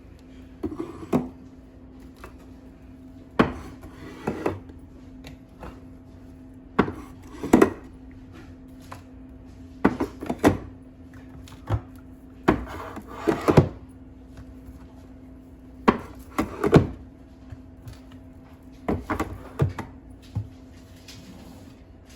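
Canned goods being set down and pushed into place on a shelf: short knocks and clunks, often two or three close together, every second or two, over a faint steady hum.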